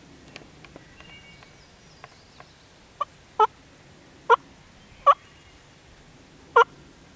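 Wild turkey jakes gobbling: five short, loud gobbles at uneven intervals over about three and a half seconds, the first one softer. Faint ticks come before them.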